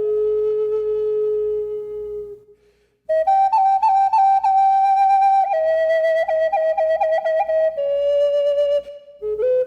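Solo flute playing a slow melody. A held note fades out a little over two seconds in, and after a short pause a new phrase begins, with long notes decorated by quick trills. The phrase breaks off briefly near the end.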